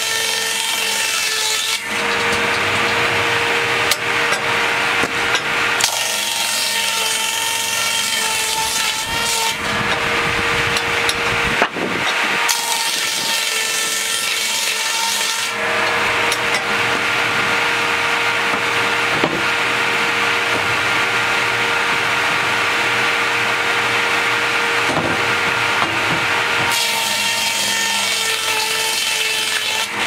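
Large circular saw blade of a breast bench sawmill ripping Douglas fir. Its steady whine while running free alternates with three stretches of loud cutting noise as boards are fed through it, the last and longest starting about halfway in.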